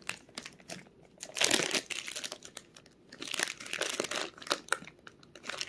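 Clear plastic wrapping on a wax melt crinkling as it is handled and opened, in irregular bursts, loudest about a second and a half in and again from about three to four and a half seconds in.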